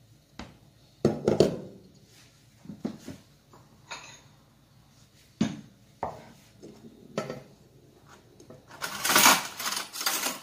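Ceramic bowls being set down and moved about on a wooden board: a string of separate knocks and clinks, then a longer, louder clatter about nine seconds in.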